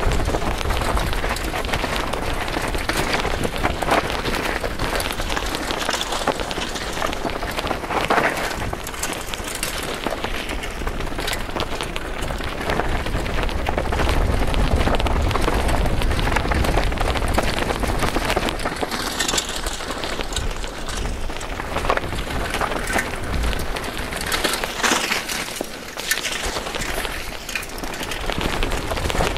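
Downhill mountain bike descending a rocky gravel trail, heard from a camera mounted on the bike: a continuous rattling crunch of tyres on loose stones and the bike shaking over rocks, with a low rumble and scattered sharp knocks throughout.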